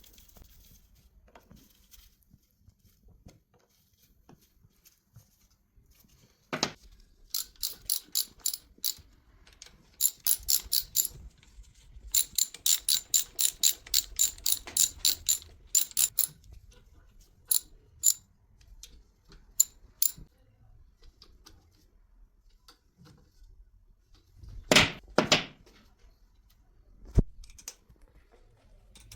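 Ratchet wrench clicking in quick runs of about five clicks a second as bolts are turned on a starter motor, with a few single clicks and a couple of louder metal clunks and a knock near the end.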